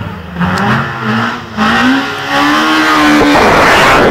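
Rally car accelerating hard up the road, its engine note rising as it revs through the gear, then a loud rush of engine and road noise as it passes close by near the end.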